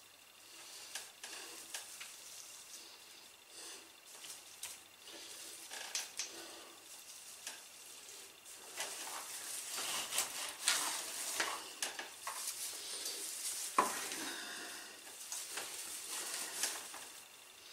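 Artificial fir garland rustling and crackling as it is handled and fastened along a door frame, with scattered small clicks. The handling gets louder about halfway through, with one sharp click about three-quarters of the way in.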